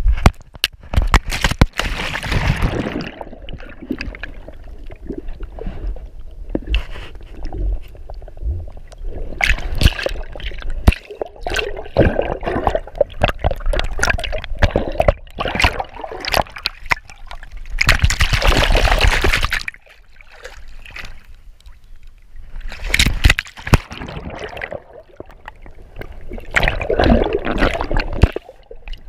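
Water sloshing, gurgling and splashing around a dog-harness-mounted GoPro Hero4 Silver as the dog goes into the water and the camera dips under, with many sharp knocks against the camera. Several loud surges of splashing, the longest lasting about a second and a half some two-thirds of the way through.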